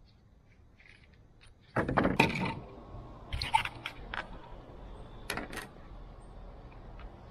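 Scraping and crackling handling noises from hands working the rubber trim strip out of a pickup's roof channel: one loud burst about two seconds in, then a few shorter ones.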